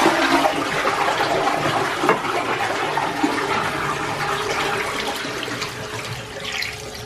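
A toilet flushing: a sudden rush of water that slowly dies down as the cistern empties and refills. About halfway through, a washbasin tap is turned on and runs over a hand.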